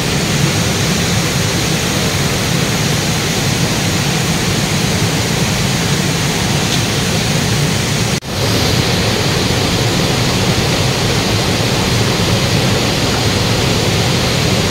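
Steady rush of a shallow river flowing over rocks, cut off for an instant about eight seconds in.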